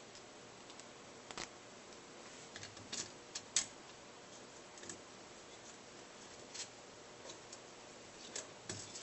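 Scattered light clicks and taps of small metal hardware (bolts, fender washers and nuts) being handled and fitted onto laser-cut plywood parts on a tabletop. The sharpest click comes about three and a half seconds in.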